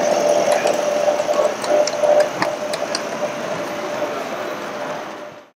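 Butane-fired live-steam Accucraft 13-ton Shay model locomotive running on the track: a steady hiss with an even tone through it and scattered light clicks. The sound fades out about five seconds in.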